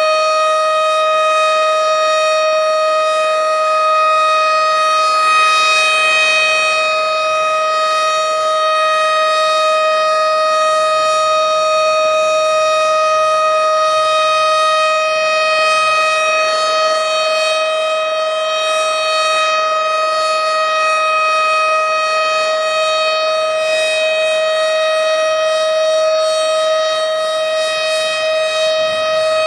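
Tornado warning siren sounding a steady tone, held at one pitch without rising or falling.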